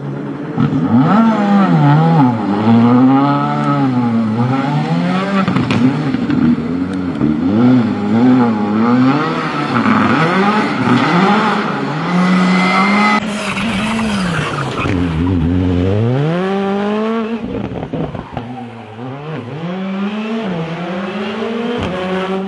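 Rally car engines revving hard through corners, the pitch swooping up and down with throttle lifts and gear changes, then climbing steadily as a car accelerates away near the end.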